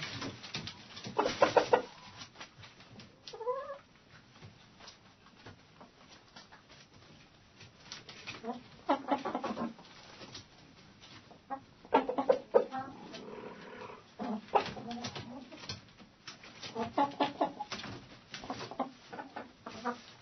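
Hens clucking in a hen house, in separate bursts with quieter gaps between; one call rises in pitch about three and a half seconds in.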